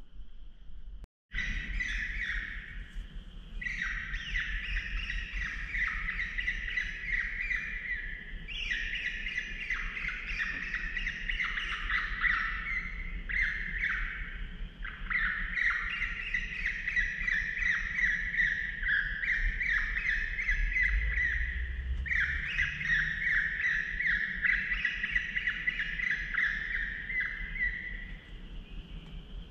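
Electronic predator caller playing a high-pitched squealing distress call in repeated phrases with short breaks, used to lure coyotes. It starts suddenly about a second in and fades out near the end, with crickets underneath.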